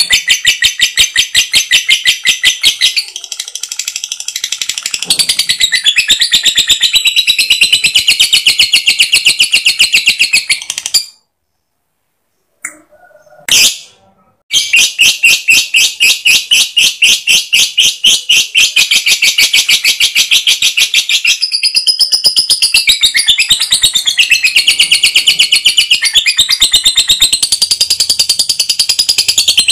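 Lovebird's long chattering trill ('ngekek'): a loud, rapid run of sharp repeated notes with no pause, cut by a few seconds of silence about halfway through.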